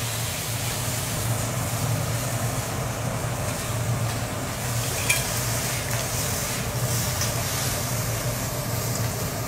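Lobster pieces sizzling on a steel teppanyaki griddle, with a metal spatula scraping and tapping the steel as the meat is cut and turned. A sharp tap about five seconds in, over a steady low hum.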